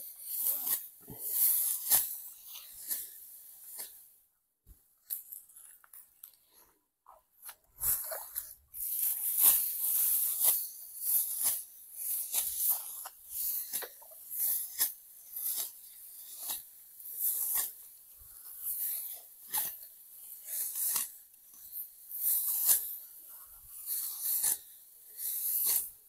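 Dry, ripe rice stalks being cut and gathered by hand: a crisp rustling crunch about once a second, pausing for a few seconds after the start and then resuming.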